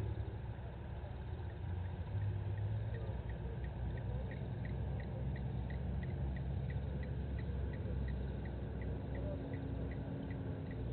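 Night-time bush ambience: a steady low hum, and from about two seconds in a regular series of short high pips, about two a second, from a small calling night creature.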